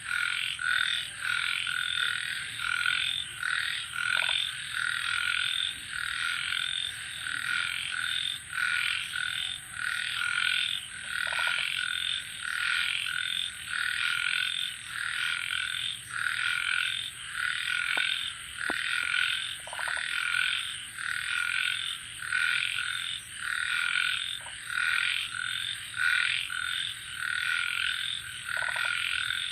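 Evening chorus of frogs croaking in a dense, rhythmic, pulsing pattern, over a continuous high-pitched trill of crickets.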